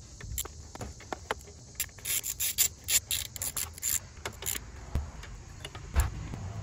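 Small socket ratchet clicking in quick runs as it tightens the mounting screws of a new idle air control valve, with a few single clicks before and a couple of dull knocks near the end.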